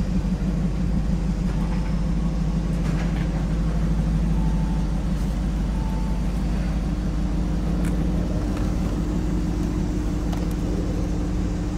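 A vehicle's engine running at a steady, even speed with a constant low hum.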